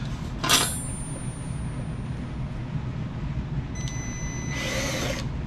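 Metal parts and tools clanking: a sharp metallic clank with a high ringing tail about half a second in, then near the end a brief high whine with a short rasping burst, over a steady low hum.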